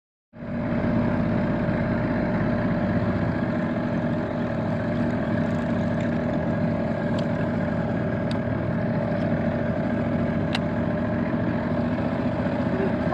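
Outboard motor running at a steady speed, an even drone with a few faint clicks in the middle.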